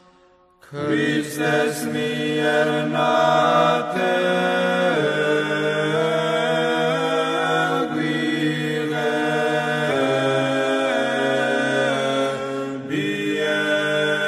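Unaccompanied choir singing Orthodox church chant in several parts, the voices holding long notes and moving together from chord to chord. It comes in abruptly less than a second in, after near silence.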